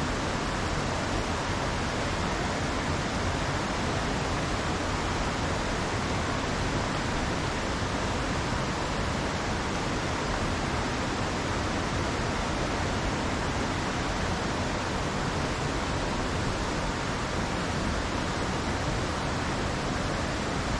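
Mountain creek rushing over rocks and riffles, a steady, even rush of water.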